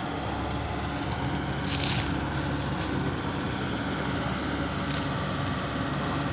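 Diesel engine of a Volvo crawler excavator running steadily while it works, with a short burst of hiss about two seconds in.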